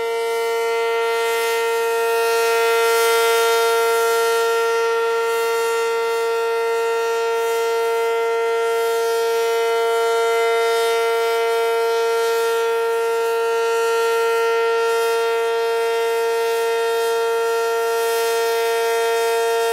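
ACA Cyclone 120 outdoor storm warning siren sounding one loud, steady tone with many overtones, held at the same pitch at full speed and swelling slightly in loudness now and then.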